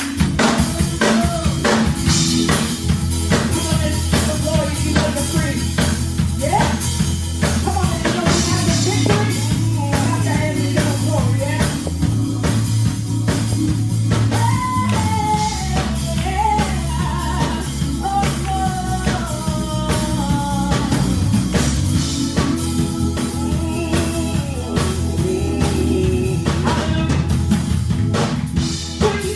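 Gospel praise music with a steady drum-kit beat, bass and singing.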